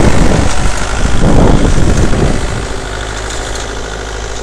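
Small diesel tractor engine running as it pulls a reaper-binder cutting and tying wheat. The first two seconds or so are louder and rougher, then it settles to a steadier, quieter run.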